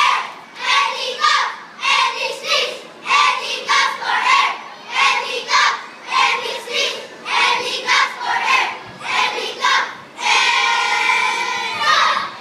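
A group of children's voices in unison, chanting a rhythmic piece syllable by syllable with short pauses, then holding one long sung note about ten seconds in.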